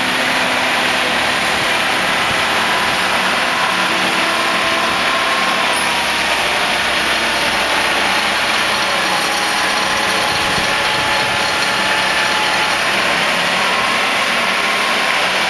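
Engine and hydraulic drive of a self-propelled Sea-Lift hydraulic boat trailer running steadily under the load of a 50-foot motor yacht, a dense even noise with a faint high whine.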